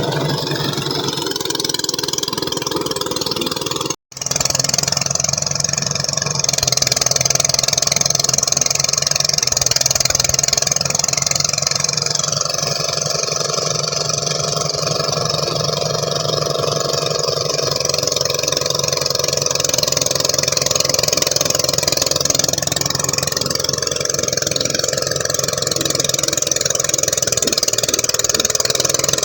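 Engine-driven rice threshing machine running steadily. The sound drops out for an instant about four seconds in, then carries on.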